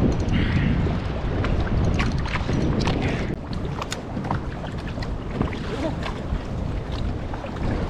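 Wind buffeting the microphone on a kayak at sea in choppy water, with short sharp splashes and slaps of waves against the plastic hull.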